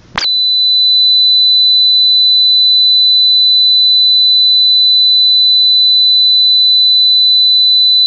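A loud, steady, high-pitched electronic whine that cuts in just after the start and holds one unchanging pitch: a fault in the phone's soundtrack. Faint muffled rumbling comes and goes beneath it.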